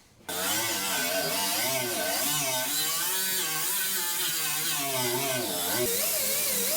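Background music comes in abruptly: a wavering melody over a steady hiss.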